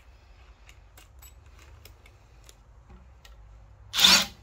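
Faint scattered clicks and taps of tools and a screw being handled, then a short, loud clack about four seconds in.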